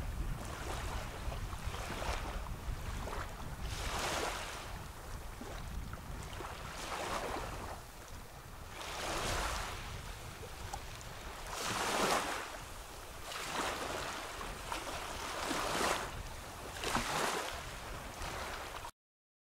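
Small waves lapping onto a sandy beach, each one breaking and washing up with a hiss that swells and fades every two to three seconds. The sound cuts off suddenly near the end.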